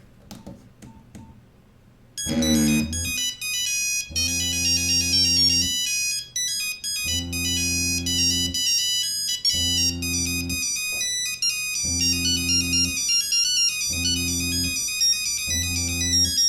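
A mobile phone ringtone preview playing from the phone's speaker. It is an electronic tune of quick bright high notes over a low chord that sounds in blocks about every two seconds, and it starts about two seconds in.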